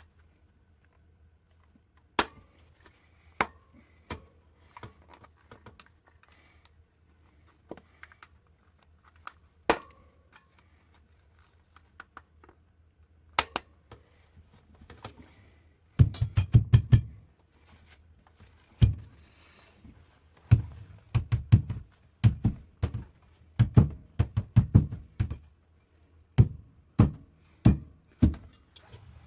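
Scattered clicks and knocks, then from about halfway a run of quick, louder low thumps in clusters: hand work on a wheelchair wheel and tyre during a tyre change, played back sped up.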